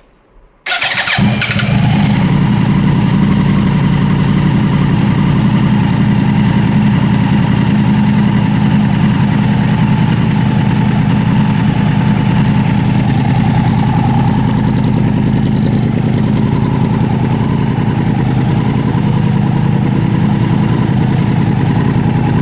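A 2013 Yamaha R1's crossplane inline-four engine cranks briefly, catches about a second in, then idles steadily and loud through a Graves full titanium exhaust with the catalyst removed and no noise reducers in the carbon cans. It is being run to check the new exhaust for leaks, with no leak whistle to be heard.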